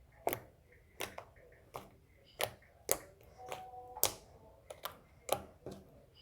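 Slime being squeezed and pressed, giving a string of short, sharp pops and clicks at irregular intervals, roughly two a second.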